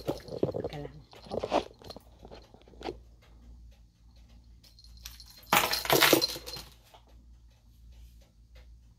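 Rustling and handling noise close to the microphone: a few short rustles and clicks, then a loud rustle lasting about a second around the middle.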